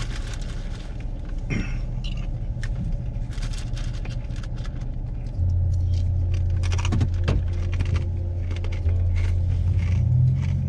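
Pickup truck engine heard from inside the cab, running low and steady, then louder and deeper from about five seconds in as the truck moves off. Short clicks and rattles sound in the cab throughout.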